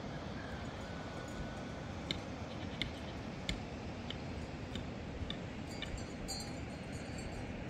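Steady rushing of a fast, muddy mountain river. About two seconds in, a run of short, high ticks starts and goes on for about four seconds.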